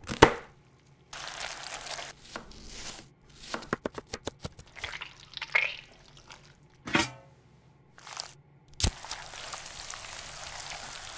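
A string of separate sound effects: sharp cracks and knocks, a quick run of clicking ticks about four seconds in, and stretches of hissing noise, with a loud crack near nine seconds followed by a steady hiss.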